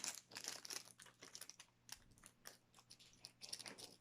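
Faint crinkling and crackling of a Pokémon booster pack's foil wrapper being handled and opened, in quick irregular clicks that are busiest near the start.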